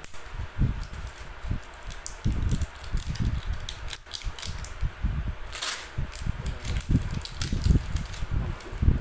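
Hands handling small plastic parts and packaging at close range: irregular dull knocks and bumps with scattered clicks and rustling, and a brief rasping noise about five and a half seconds in.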